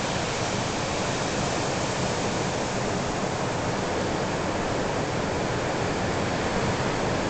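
Ocean surf: a steady, even rush of waves breaking on the shore.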